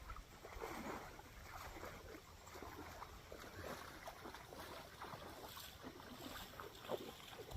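Faint, irregular lapping of water.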